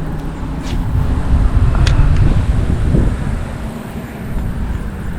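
Wind buffeting the microphone: a loud, gusting low rumble, with two faint ticks in the first two seconds.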